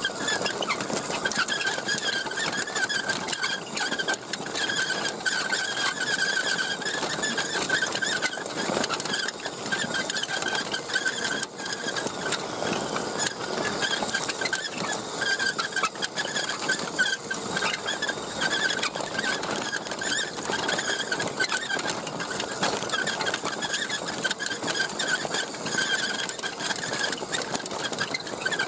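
RC truck's electric motor and gears whining steadily as it drives, wavering slightly, over a continuous crunching rattle from the wheels and towed trailer on a dirt track.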